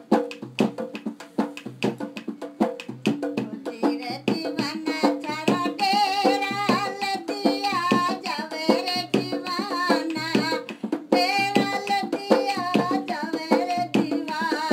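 Live Rajasthani folk music: a dholak drummed in a quick, steady rhythm, with a voice singing over it from about four seconds in.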